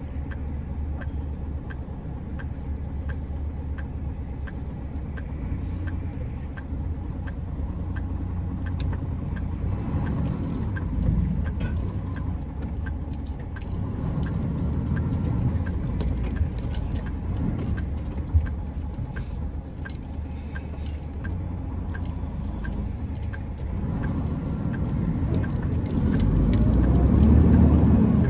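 Steady low rumble of a truck's engine idling, heard from inside the cab. It swells louder a few times and is loudest near the end, and a faint regular ticking runs over it.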